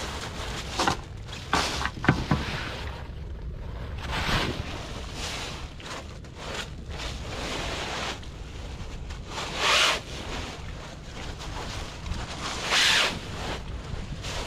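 Wind buffeting the microphone, with a few sharp knocks about two seconds in and three loud splashing swishes of water as a wet fishing net is hauled from the sea.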